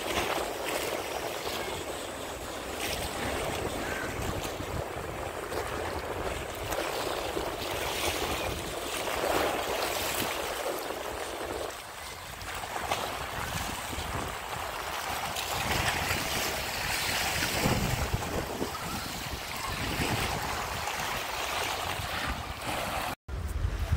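Small waves splashing and washing against the rocks along a concrete seawall, with wind buffeting the microphone. The sound drops out for a moment near the end.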